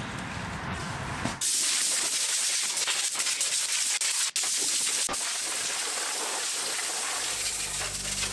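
Compressed-air blow gun hissing steadily as it blows grinding dust out of a stripped car engine bay, starting about a second in and briefly cutting out around the middle. Music fades in near the end.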